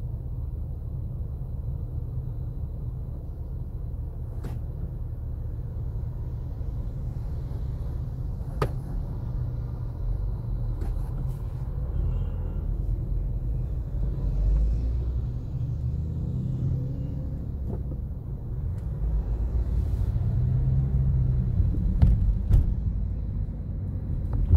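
Low, steady car-cabin rumble from a Toyota Corolla waiting in traffic. In the second half it grows louder as the car pulls away, with a few light clicks along the way.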